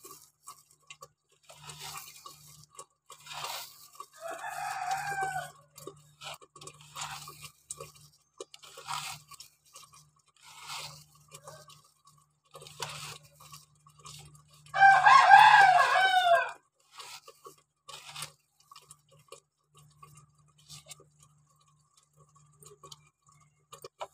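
Dry-roasted kasuri methi leaves crackling and rustling in short scratchy bursts as fingers crush them to powder on a plate. A rooster crows twice, about four seconds in and again, louder, about fifteen seconds in.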